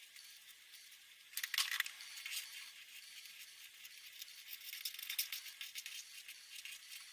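Felt-tip pen stroking across paper: a run of quick, scratchy strokes that starts about a second and a half in, over a faint hiss.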